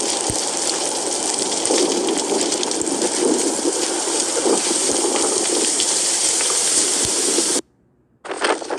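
Steady rushing, hissing noise with scattered small ticks, the kind made by heavy rain or gushing water. It cuts off abruptly about seven and a half seconds in, and after half a second of near silence a different, uneven noise begins.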